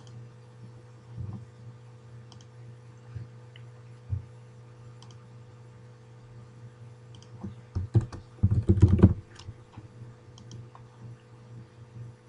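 Computer keyboard typing: a short run of keystrokes about eight seconds in, the loudest part, after a few scattered clicks, over a steady low electrical hum.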